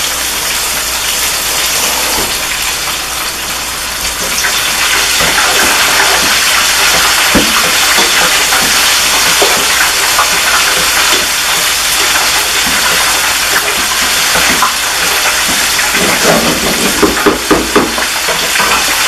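Okra, sausage and peppers sizzling steadily in hot oil in a pot while being stirred with a wooden spoon. The sizzle grows louder about four seconds in, and a quick run of knocks comes near the end.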